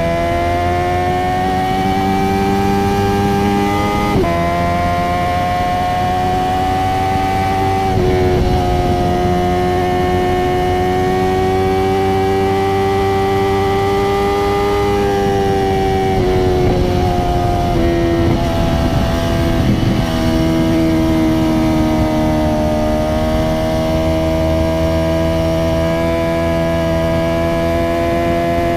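Honda CBR650R's inline-four engine through an Akrapovič titanium exhaust with no dB killer, running steadily under way. Its pitch climbs slowly and drops briefly several times as gears change.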